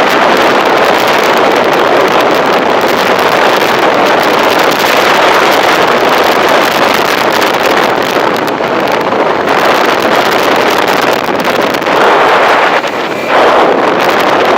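Wind blasting a microphone while riding a motorcycle: a loud, steady rush of air noise that covers everything else, with a brief dip a little over a second before the end.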